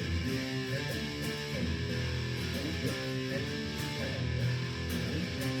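Bolt-on electric guitar played through an amplifier's high-gain channel: distorted notes and strummed chords, heard through a phone's microphone.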